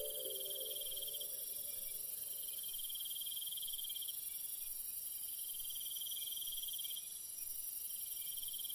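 Crickets chirping in a night-forest ambience, in steady trills about a second or so long, one after another with short gaps.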